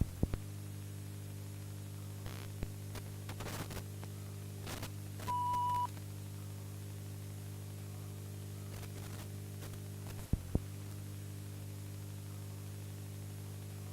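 Corrupted VHS tape playback: a steady low buzz under constant static hiss, with scattered clicks and crackles in the first few seconds. A short steady beep sounds about five seconds in, and there is a brief dropout with two sharp clicks around ten seconds.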